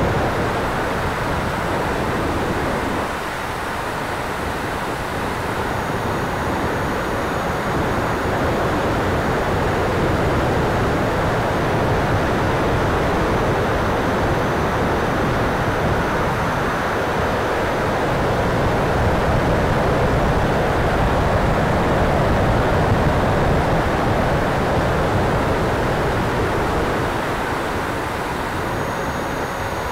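Onboard sound of an E-flite F-16 80mm electric ducted-fan model jet in flight: a steady rush of airflow and fan noise, with wind buffeting the wing-mounted camera's microphone. The level eases slightly a few seconds in and again near the end.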